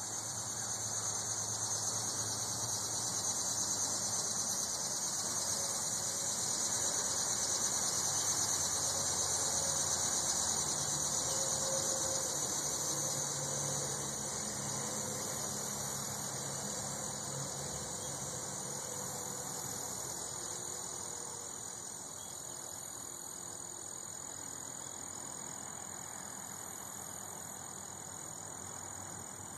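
Steady high-pitched insect chorus, swelling over the first several seconds and easing off in the second half, with a faint low hum beneath.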